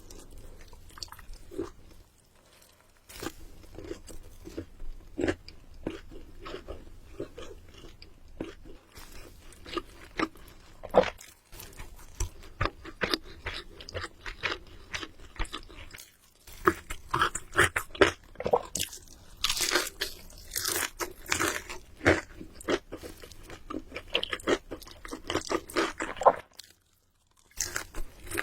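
Close-miked biting and chewing of crunchy food: rapid runs of crisp crackles with chewing between bites, pausing briefly about 2 s, 16 s and 27 s in, and densest a little past the middle.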